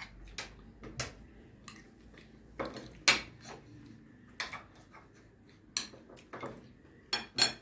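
Fork and cutlery clinking against dinner plates while fried fish is picked apart at the table: about a dozen scattered sharp clicks, the loudest two close together near the end.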